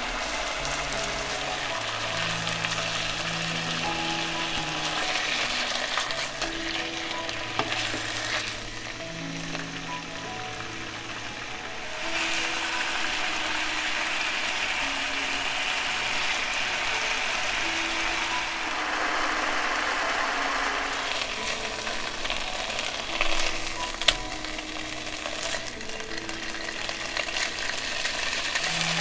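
Food sizzling as it fries in a pan, the sizzle growing louder about twelve seconds in, with one sharp click about three-quarters of the way through.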